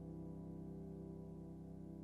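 Background music: a sustained chord held steadily and slowly fading.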